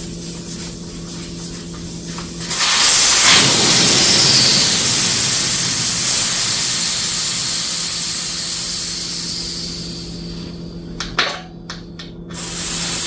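Air rushing out of a dirt bike's inner tube through the open valve stem once the valve core is removed: a loud hiss starts about two and a half seconds in and slowly fades as the tube deflates. The deflation lets the tube settle inside the tire without a twist. Near the end come a few sharp clicks and a short, loud burst of air.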